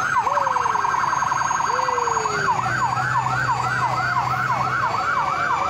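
Electronic siren on a volunteer fire department rescue squad truck running code 3. It goes from a rapid warble into a yelp of about three sweeps a second, about two and a half seconds in.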